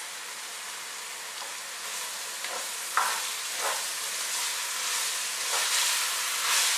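Chopped vegetables, red bell pepper and green onion, sizzling in hot oil in a pot as a spatula stirs them. The sizzle grows louder from about two seconds in, with a few sharp scrapes of the spatula against the pot around three seconds in.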